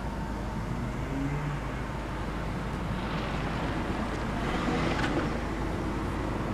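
Steady traffic noise with a low rumble. A rush of noise swells about three to five seconds in, with a sharp click near its peak.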